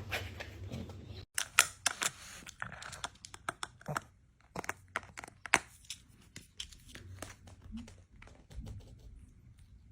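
Crinkling and tearing: a quick run of sharp crackles and snaps starting about a second in, thinning out after a few seconds.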